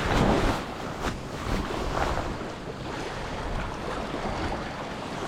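Choppy sea water washing and splashing, with wind buffeting the microphone.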